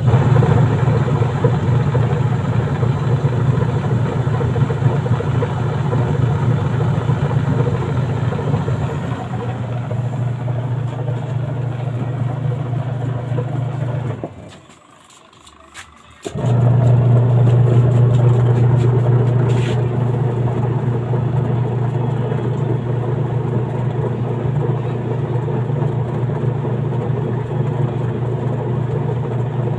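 Newly installed washing machine wash motor running under test with a steady hum, cutting out about halfway through for a couple of seconds and then starting up again.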